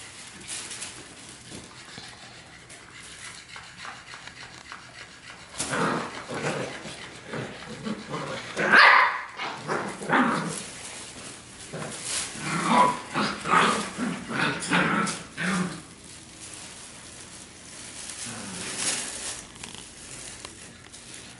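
Puppies barking and yipping at each other in play, in short calls on and off from about six seconds in, loudest near the middle, with scuffling around them.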